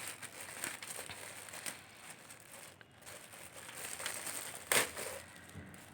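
Packaging crinkling and rustling as it is handled, with a few light clicks and one louder rustle near the end.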